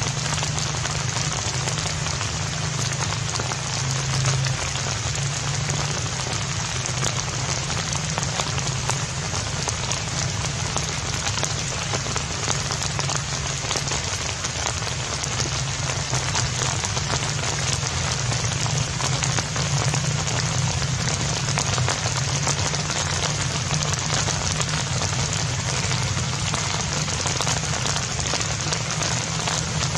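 A steady, even hiss like rain falling on a surface, with a low hum beneath it; it neither changes nor pauses.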